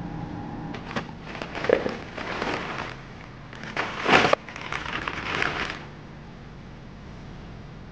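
Plastic packaging crinkling and rustling as swimwear is pulled out of its bag, in several irregular bursts, loudest about four seconds in.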